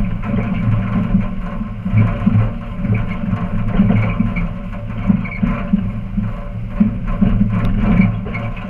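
Tow truck driving at low speed with a car on its wheel-lift, a steady engine and road rumble.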